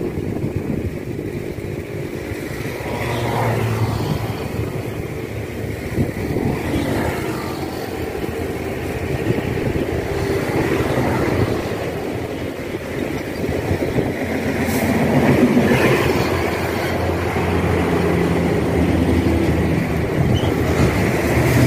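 A small engine running continuously, its pitch and level rising and falling; it swells about two-thirds of the way through and again near the end.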